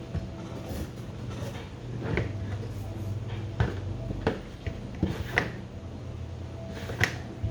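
A T-shirt being handled on a work surface as its sleeves are tucked inside each other: fabric rustling with a few sharp knocks and taps, over a steady low hum.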